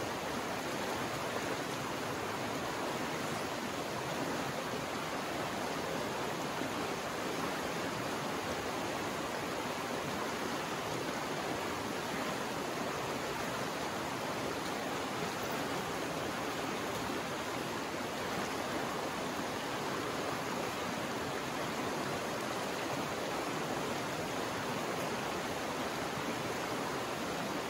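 Fast-flowing river rushing over rocks and riffles: a steady, unbroken sound of running water.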